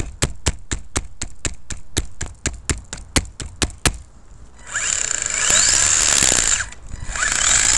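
Ansmann SC4 RC truck's electric motor clicking evenly, about five clicks a second, from its cooling fan with a blade broken off by a stone. About two-thirds of the way in, two throttle bursts of about two seconds each, with a rising motor whine and drivetrain noise.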